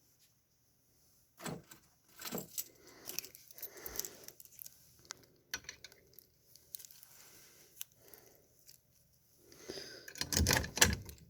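A bunch of keys jangling and clicking in short scattered bursts, loudest in a cluster just before the end.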